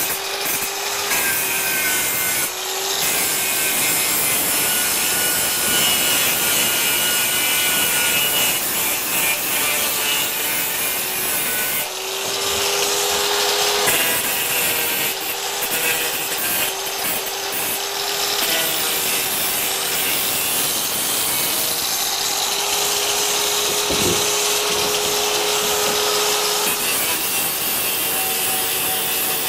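Electric angle grinder running against steel, grinding and polishing the welded tool sculpture's tail to a shine. It makes a continuous harsh grinding noise over a motor whine that shifts a little in pitch as the disc is pressed and eased, letting up briefly about twelve seconds in.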